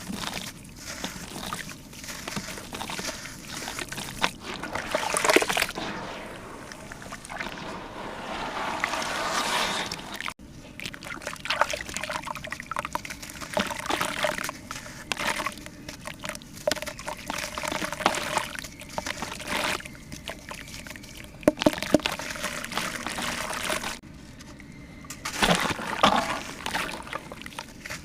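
Water pouring and sloshing, coming and going in irregular surges.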